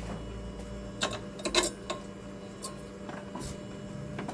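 A handful of sharp, irregularly spaced clicks and light knocks, the loudest cluster about a second and a half in, over a low steady hum.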